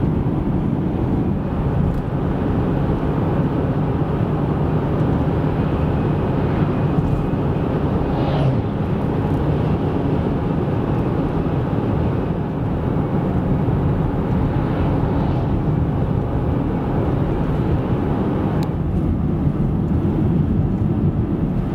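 Steady road noise of a car driving on the highway, heard from inside the cabin.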